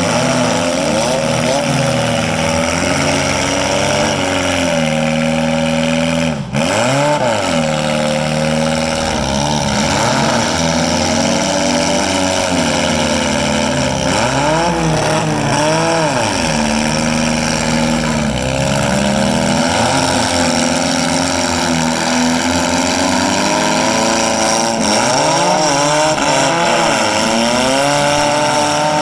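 Several four-cylinder demolition derby car engines running at once, revving up and down against each other.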